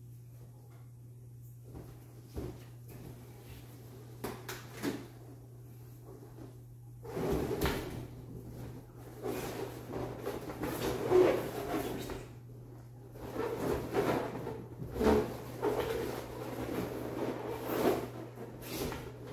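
Inflated latex balloons rubbing against each other as clusters are pulled off a balloon column's pole: a few light knocks at first, then from about seven seconds in a run of irregular rubbing noises. A steady low hum lies underneath.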